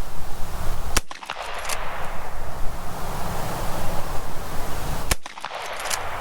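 Two shots from a Marlin 1894 CSBL lever-action rifle, about four seconds apart, each a sharp crack with a short tail. Wind rumbles on the microphone between them.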